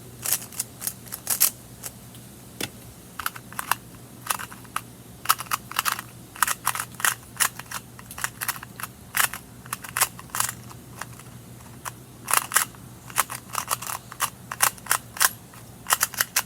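A new plastic Rubik's cube being turned fast during a timed solve: the layers clack in quick, irregular clusters of sharp clicks. This cube is pretty loud when turned.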